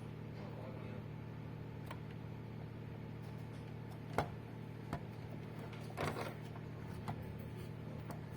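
Steady low hum with a few scattered clicks and knocks, the sharpest about four seconds in and a short rattle about six seconds in.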